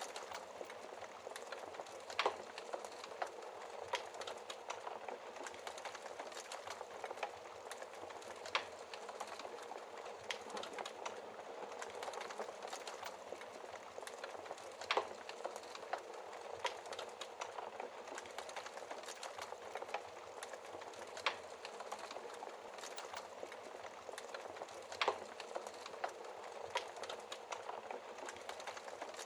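Wood fire in a fireplace crackling steadily, a constant hiss with a thick scatter of small crackles and a few louder sharp pops from the burning logs.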